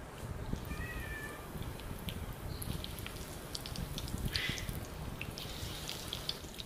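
Crumb-coated potato and quail egg balls frying in hot oil: a steady sizzle with scattered small pops and crackles. A short high-pitched cry sounds about a second in.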